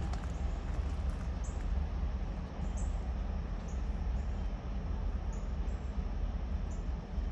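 Steady low rumble of a Norfolk Southern diesel locomotive approaching slowly, with a few short high chirps scattered over it.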